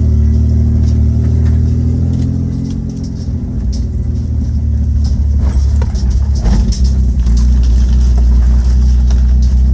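Straight-piped Nissan Patrol with an RB30 straight-six running loud under load with no exhaust, easing off briefly about three seconds in and then building again. Scattered knocks and rattles come through in the second half.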